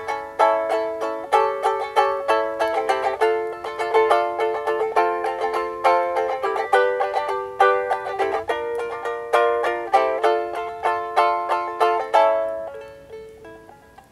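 Ukulele strummed in quick, regular chords. Near the end the strumming stops and the last notes fade away.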